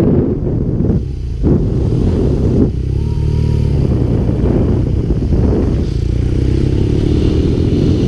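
Motorcycle on the move: wind rushing over the microphone with the engine running underneath. Its engine note shows through more plainly about three seconds in.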